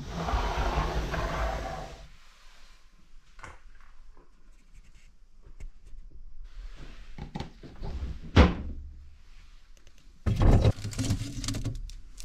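Household doors and drawers being handled, with a refrigerator opened: a brief rush of noise at the start, a sharp click about eight seconds in, and a clatter of knocks and thuds near the end.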